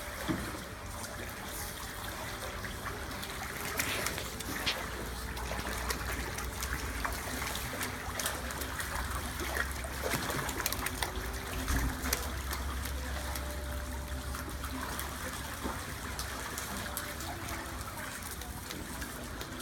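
Steady trickle of running water in a penguin pool, with small splashes and drips.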